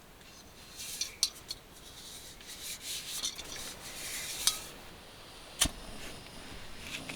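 Objects being handled close by: rustling and scraping with several sharp clicks, the sharpest about a second in, about four and a half seconds in and about five and a half seconds in.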